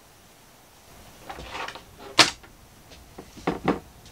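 Foam and material rustling as they are handled on a workbench, with a sharp knock about two seconds in and two more knocks about a second and a half later.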